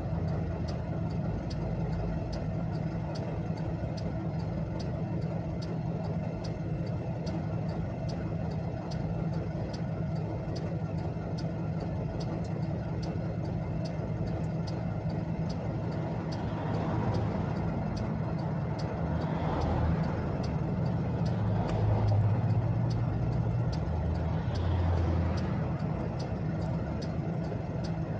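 Car hazard-light flasher ticking steadily inside the cabin, about three ticks every two seconds, over a steady low engine hum that grows a little louder for a while past the middle.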